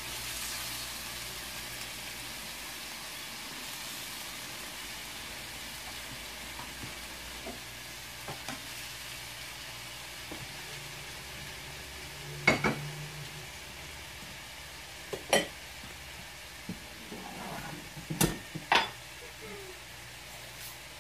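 Pork ribs frying in a little vegetable oil with garlic in a nonstick pan: a steady sizzle. About twelve seconds in and a few times near the end come sharp clicks and knocks of kitchen utensils.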